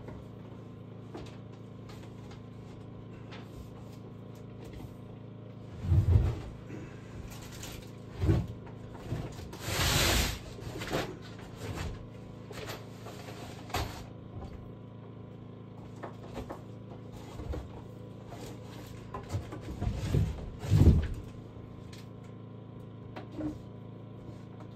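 Scattered knocks and thuds over a steady low hum. The loudest thuds come about six seconds in and again around twenty seconds, with a short rushing noise about ten seconds in.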